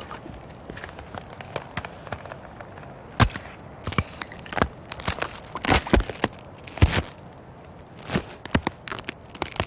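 Ice cracking: faint crackles at first, then from about three seconds in a run of louder sharp cracks and snaps at irregular intervals, some in quick clusters, over a steady background hiss.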